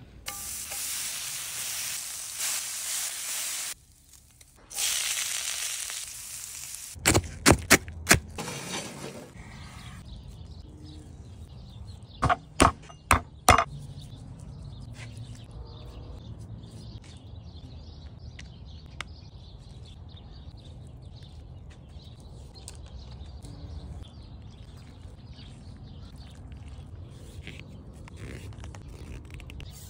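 Meat sizzling for several seconds, a bright hiss that drops out briefly near four seconds. Then a run of sharp knocks and taps, and after that only faint handling noise over a low steady background.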